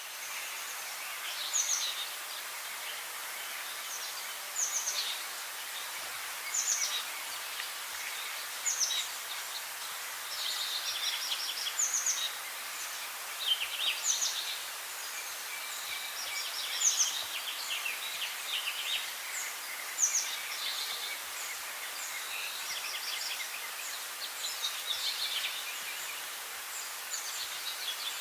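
Songbirds singing short, high phrases over and over, one every second or two, over a steady background hiss.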